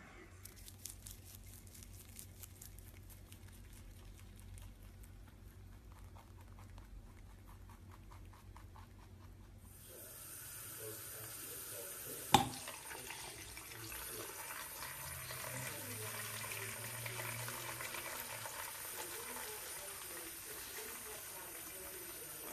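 Faint rapid clicking, then about ten seconds in a tap starts running into a bathroom sink, water splashing steadily in the basin. One sharp knock comes about two seconds after the water starts.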